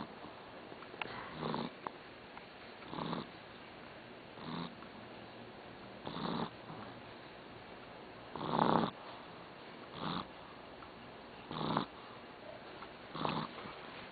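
A sleeping pet snoring. About eight short snores come roughly a second and a half apart, and one about two-thirds of the way through is louder and longer than the rest.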